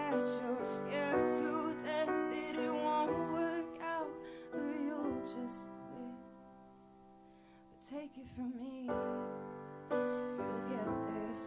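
Grand piano playing slow chords while a woman sings over them. About halfway a chord is held and fades almost to silence, then the piano comes back in with new chords near the end.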